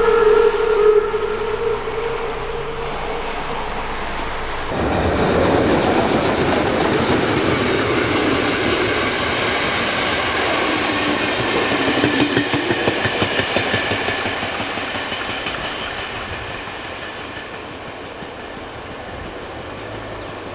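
A car drives over a level crossing, then a steam-hauled passenger train rolls past, its coaches' wheels clacking over the rail joints. The sound fades as the train pulls away into the distance.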